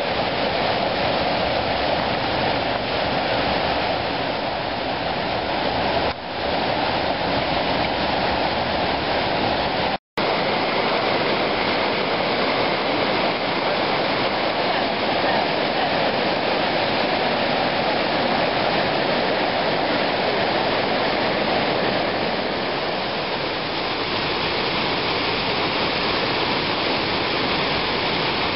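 Steady rush of river water pouring over rock ledges in rapids and a waterfall. The sound cuts out completely for an instant about ten seconds in.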